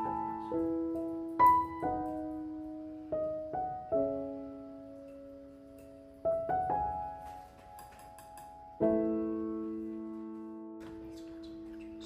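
Slow solo piano music: single notes and chords struck one after another and left to ring out, ending on a long chord that fades away.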